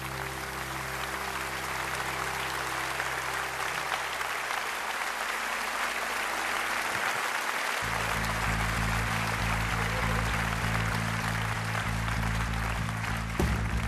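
Audience applauding as the last low chord of a song dies away over the first few seconds; about eight seconds in, low steady instrument notes come in under the applause.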